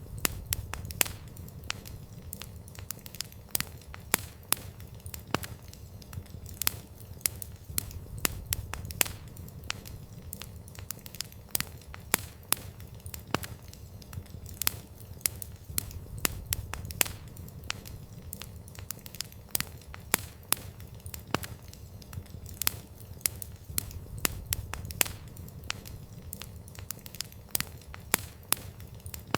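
Wood fire crackling: frequent irregular sharp pops and snaps over a low, steady rumble of burning.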